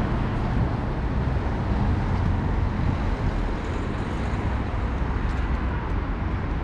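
Town street ambience: a steady low rumble of traffic noise.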